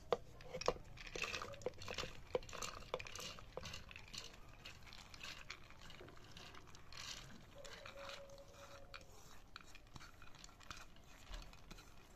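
Soaked chana dal (split chickpeas) being tipped from a bowl into a steel mixer-grinder jar, the grains pattering and clicking against the steel, busiest in the first few seconds and thinning out later.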